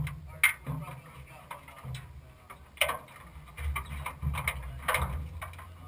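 Scattered clicks and knocks around the cockpit of a parked off-road race vehicle, over a low steady rumble, with the loudest knocks near the start and about three and five seconds in.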